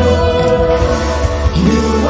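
Live worship band playing a slow praise song: keyboard, electric guitars and bass under singers holding sustained notes.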